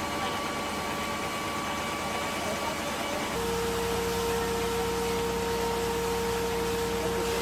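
Caterpillar excavator's diesel engine running steadily as a constant hum. About three seconds in, the sound changes abruptly to a lower, slightly louder hum.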